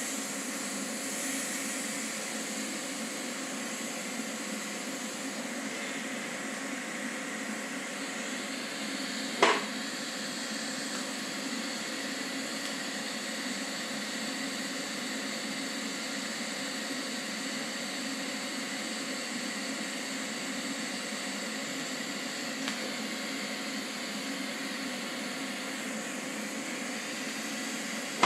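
TIG welding torch on a Vulcan OmniPro 220 welder running: a steady, even hiss of the arc and shielding gas, with a sharp click about nine seconds in and another at the very end.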